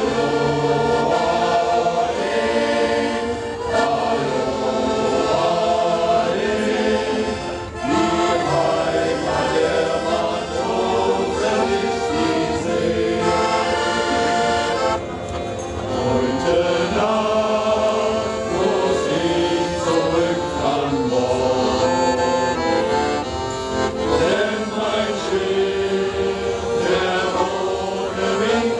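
Men's shanty choir singing a sea shanty together, with accordion accompaniment.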